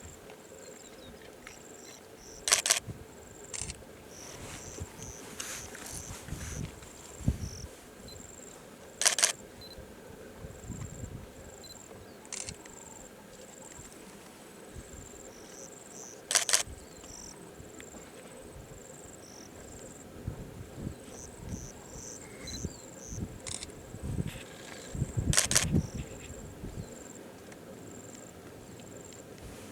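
Camera shutter clicks in quick doubled bursts, four times, over the steady high chirping of insects.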